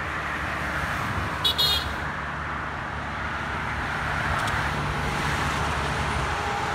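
Steady highway traffic from tyres and engines passing below, growing louder in the second half as semi-trucks approach. A brief high-pitched double chirp sounds about one and a half seconds in.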